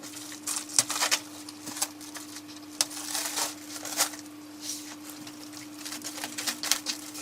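Packaging being opened and rummaged through: irregular rustling, crinkling and scraping as the mirror's box is opened and searched. A faint steady hum runs underneath.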